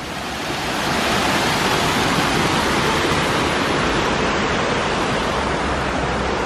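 Steady rush of falling water from a waterfall, an even hiss and splash that grows a little louder just under a second in and then holds.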